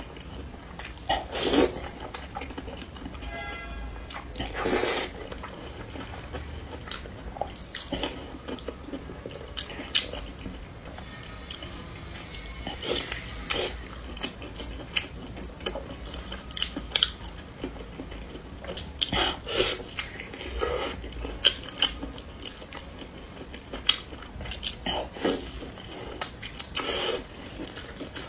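Close-miked eating sounds: noodles slurped in spicy sauce, then wet chewing and biting into a sauced chicken drumstick, in scattered short smacks and slurps.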